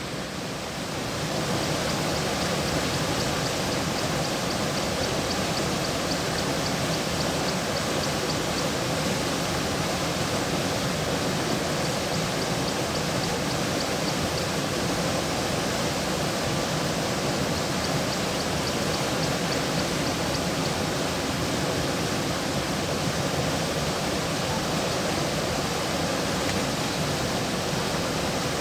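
Steady rush of flowing river water, growing louder about a second in and then holding even. Faint, rapid, high-pitched ticking comes and goes in the background.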